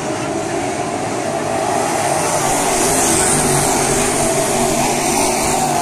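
A field of crate-engine dirt late model race cars running at speed around the oval, a steady mixed engine drone. It grows louder about two seconds in as a car passes close by.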